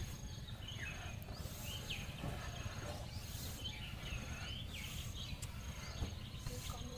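Quiet rural outdoor background: a low steady rumble with faint scattered bird chirps and a faint high chirp repeating about once a second.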